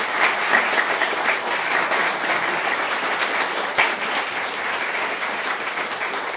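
An audience applauding, a dense steady patter of many people clapping that eases slightly near the end.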